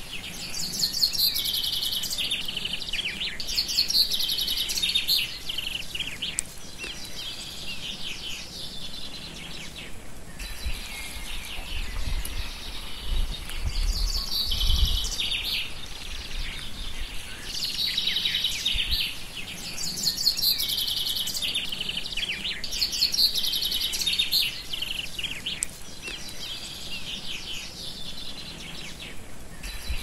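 A songbird singing phrase after phrase of fast, high trills and whistles, each a second or two long with short gaps between; the uploader takes it for a common nightingale but is unsure. A low rumble comes about halfway through.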